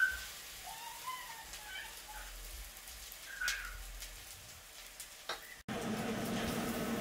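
Spinach fritters frying in a pan of hot oil, a steady sizzle, with a couple of sharp clicks of a spoon against the pan. Shortly before the end the sound cuts abruptly to a louder, steadier sizzle over a low hum.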